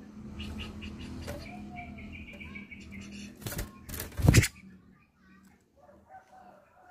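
Caged grey-cheeked bulbul (cucak jenggot) giving short chattering call notes, then a loud burst of wing flapping about three and a half to four and a half seconds in as it flits off the perch, followed by fainter calls.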